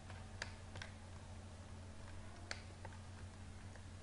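Four faint computer mouse clicks, in two close pairs, over a steady low hum.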